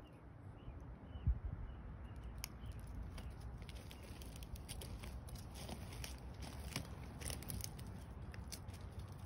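Steps crunching and crackling on crushed stone and dry leaves, over a low rumble on the microphone, with a single thump about a second in.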